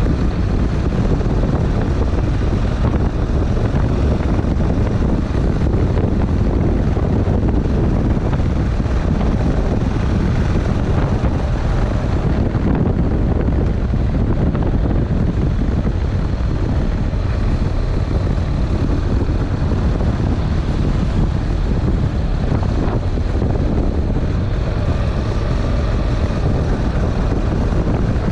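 Honda NC700X's parallel-twin engine running steadily while riding along, mixed with wind buffeting on an unshielded GoPro microphone.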